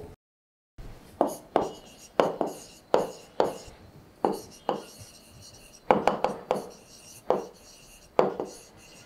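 Stylus strokes and taps on a writing tablet: about a dozen short, sharp, irregularly spaced knocks as figures and words are handwritten, starting about a second in.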